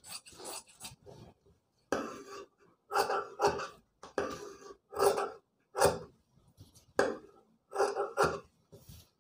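Large tailor's shears snipping through two layers of coat fabric held together: a series of short snips, roughly one every second, starting about two seconds in.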